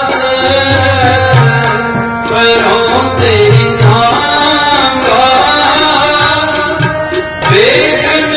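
Sikh kirtan: a man singing a Gurbani shabad with harmonium and tabla accompaniment, the tabla's deep drum strokes beating under the held harmonium notes.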